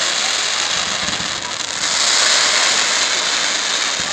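Fireworks display going off, heard as a dense, steady hiss with no single loud bang standing out.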